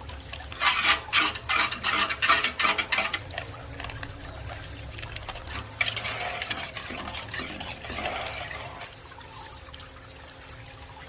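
Kitchen sounds: a utensil clattering in quick sharp strokes against a pot or bowl for a few seconds, then a softer stretch of liquid pouring or splashing.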